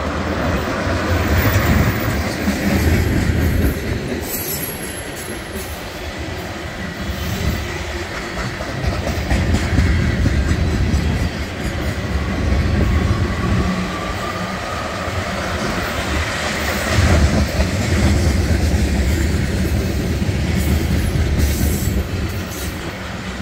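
Mixed freight train's cars rolling past close by: steady rumble of steel wheels on the rails, with a faint squeal rising in pitch about halfway through.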